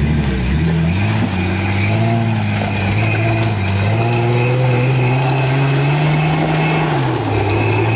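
Jeep Wrangler's engine revving under load as it climbs a steep, muddy hill. The revs rise just after the start, hold steady, and drop back about seven seconds in.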